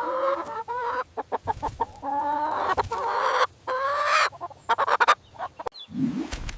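Chicken calling: several drawn-out squawks with short bursts of rapid clucking between them.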